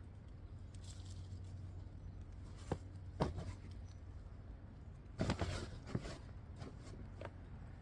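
A few scattered rustles and knocks, strongest about three seconds in and in a short cluster around five to six seconds in, over a steady low hum.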